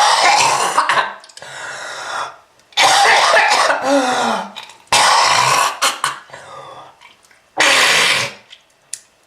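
A person coughing in four harsh fits, hacking and clearing the throat, with quieter rasping breaths between them: a smoker's cough.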